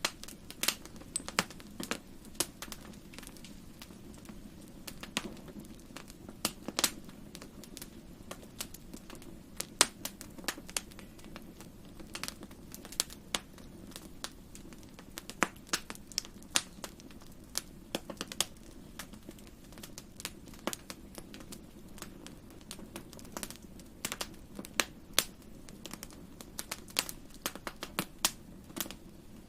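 Fireplace fire crackling: irregular sharp pops and snaps, some louder than others, over a steady low rush.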